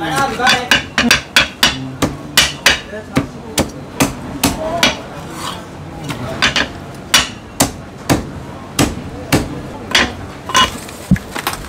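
Heavy Chinese cleaver chopping a cooked chicken through the bone on a thick round wooden chopping block: a quick, uneven series of sharp, loud chops, two or three a second.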